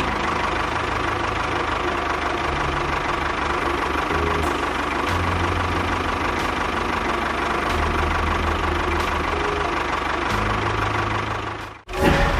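Engine running steadily at idle with a knocking rhythm, cutting off suddenly near the end.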